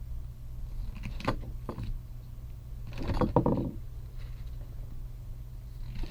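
Plastic battery door of a Gemmy mechanical hat being handled and worked: a couple of light clicks, then a short clatter about three seconds in, over a steady low hum.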